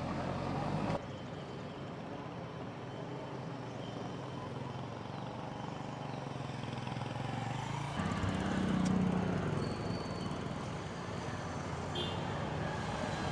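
Outdoor ambience with a motor vehicle engine running in the background as a steady low hum. The sound bed shifts abruptly about a second in, and a louder low hum swells around eight seconds in.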